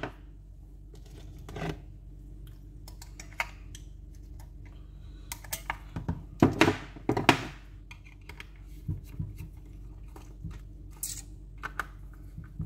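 Small clicks and knocks from handling a Garmin GPSMAP 76CSx handheld GPS on a rubber work mat: its AA batteries are taken out and the plastic unit is turned over and set down. A cluster of louder knocks comes about six to seven seconds in.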